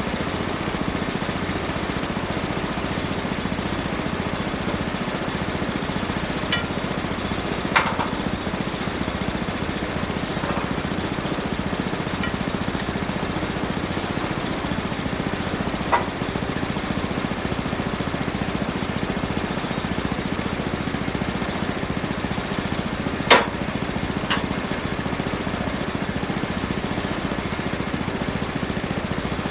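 An engine idling steadily, punctuated by a few sharp metallic clanks with a short ring; the loudest clank comes about two-thirds of the way through.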